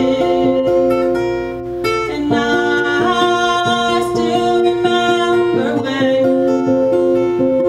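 Acoustic guitar played in a steady run of picked notes while a woman sings over it.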